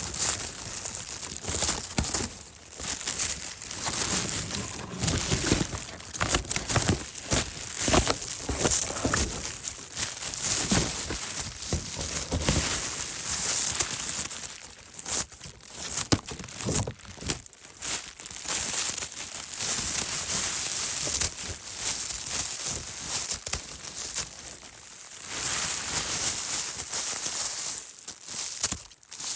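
A thin nylon bag being cut, crinkling and tearing almost continuously, with a few short pauses.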